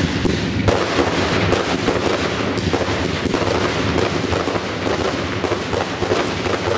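Fireworks display firing a fast barrage: closely packed, overlapping bangs from aerial bursts with no pause between them, over the steady hiss of ground fountains.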